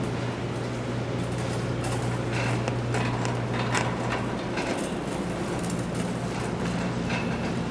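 Grocery store background: a steady low hum with scattered clicks and rattles starting about two seconds in.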